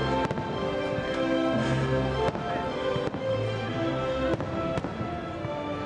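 Aerial fireworks bursting in several sharp bangs over the fireworks show's music soundtrack, which plays steadily and is the louder sound.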